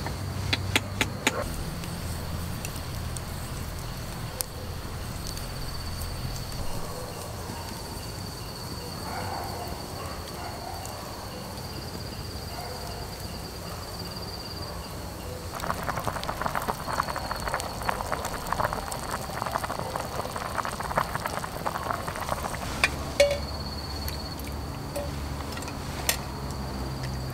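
Campfire crackling and popping: a dense run of crackles about halfway through, with one sharper pop. A steady high trill of night insects runs underneath, and a few taps of a wooden spoon in a metal mug come at the start.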